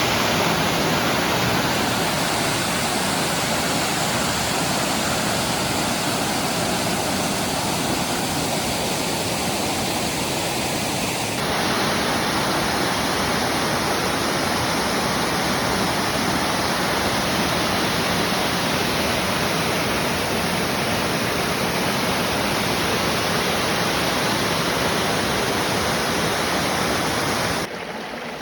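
Rushing water, a loud steady rush with no distinct splashes or tones. About eleven seconds in it changes abruptly in character, and near the end it drops sharply in level, like a cut to quieter water.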